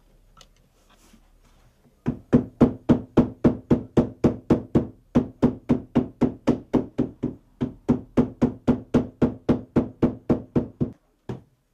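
A bookbinder's wooden-handled hammer beating along the spine of a thick paper text block: dull knocks, about three a second, starting about two seconds in, with a brief break near the middle and a last single blow near the end. The hammering rounds the spine of the book block.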